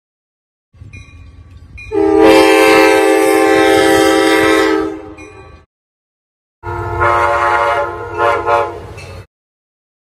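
Nathan K5LA five-chime horn on an Amtrak Budd Metroliner cab car, sounded twice: a chord of several steady notes held about three seconds, then another of about two and a half seconds. The low rumble of the moving train runs underneath.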